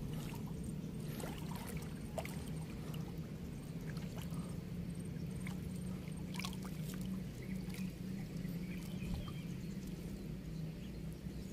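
Small splashes and trickles of shallow river water as hands feel along the bottom and gather in a wet cast net, with irregular short splashes over a steady low rumble.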